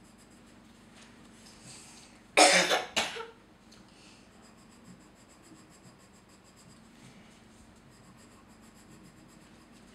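A young girl coughing twice in quick succession, about two and a half seconds in, against a quiet room.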